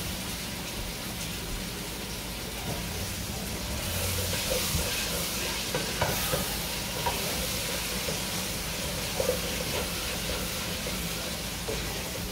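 Diced potatoes and spices frying and sizzling in a stainless steel pot, stirred with a wooden spatula that scrapes and knocks against the pot now and then. The sizzle gets louder about four seconds in.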